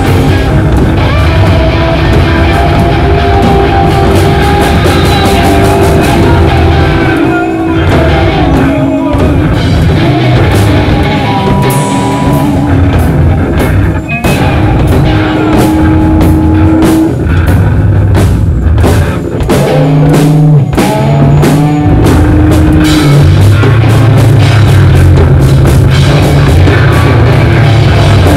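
Loud rock band music: electric guitar, bass and drum kit playing together, with long held notes over continuous drumming.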